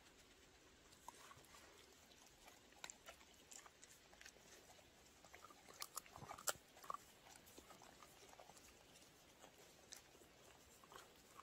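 Dog gnawing and chewing on a piece of pine: faint scattered crunches and clicks, with a louder cluster of crunches about six seconds in.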